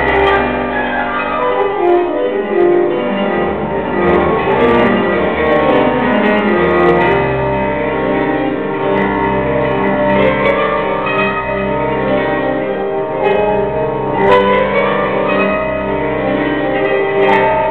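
Instrumental ballet music playing from a recording: melodic lines over sustained low notes, with piano-like and bell-like tones.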